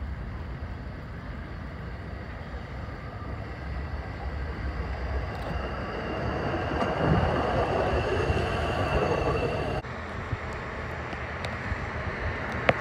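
A hi-rail pickup truck driving along the railroad track and passing close, its running noise growing louder as it comes by, with a thin steady high whine while it passes. About ten seconds in the sound cuts abruptly to a quieter outdoor background.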